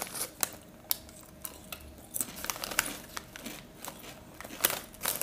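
Crisp packet crinkling in short, scattered crackles as a hand rummages inside it for a crisp at the bottom.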